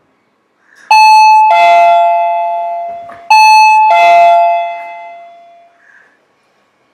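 Two-tone doorbell chime ringing ding-dong twice, about two and a half seconds apart; each time a higher note is followed by a lower one that rings on and fades away.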